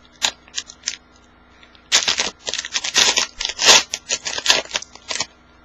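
A trading card pack's wrapper being torn open and crinkled by hand: a few sharp crackles, then a dense run of crinkling from about two seconds in that stops shortly before the end.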